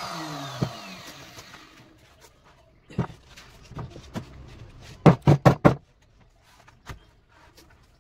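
Electric handheld router winding down after being switched off, its whine falling away over the first second or two. Then wooden knocks as the carved bed board and post are handled on the wooden workbench, loudest in a run of four quick knocks about five seconds in.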